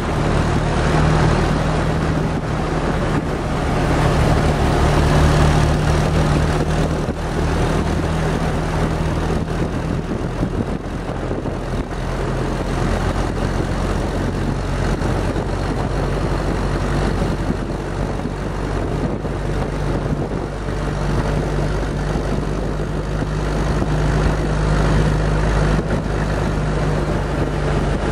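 WWII Jeep's four-cylinder flathead engine running steadily as the Jeep drives along a road, heard close up with wind and road noise rushing over the microphone.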